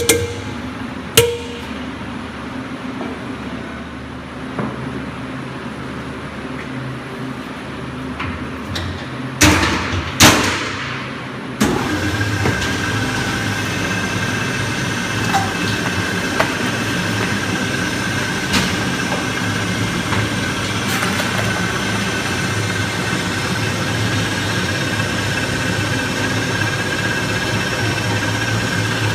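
A few sharp knocks, then about twelve seconds in an electric meat grinder's motor switches on and runs steadily, a low hum with a constant high whine.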